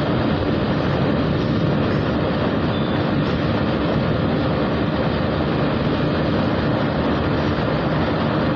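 Steady rush of wind over the microphone of a moving motorcycle at highway speed, with the bike's engine running underneath at a constant pace.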